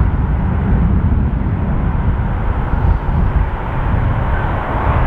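Steady distant rumble of motorway traffic and an electric freight train in the valley far below, mixed with uneven low buffeting from wind on the microphone.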